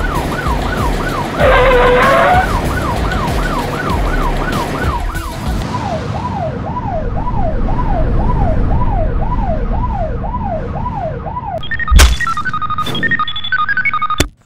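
Cartoon siren sound effect: a fast wailing yelp that repeats about two to three times a second over a rumbling vehicle noise, and drops to a lower pitch about halfway through. A loud thump comes near the end, followed by a few short beeps.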